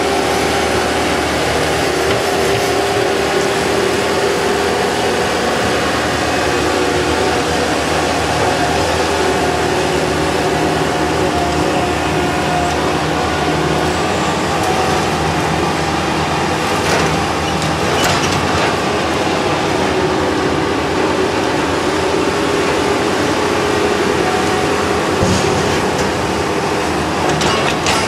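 Bobcat 773 skid-steer loader's diesel engine running steadily with a whining hydraulic note as it lifts and tips a load of tree branches into a dump truck bin. A few knocks and clatters come about two-thirds of the way through and again near the end.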